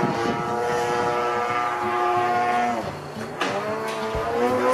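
The 26cc single-cylinder gas engine and propeller of an RC Extra 260 aerobatic model plane, buzzing steadily in flight. About three seconds in it drops back as the throttle eases, then its pitch climbs again as power comes back on.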